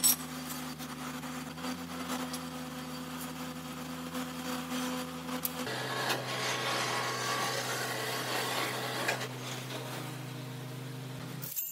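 Heavy manual lathe's electric drive humming steadily. About halfway through the hum changes to a different motor with added mechanical rattle, as an overhead crane's electric hoist runs. The sound cuts off sharply near the end.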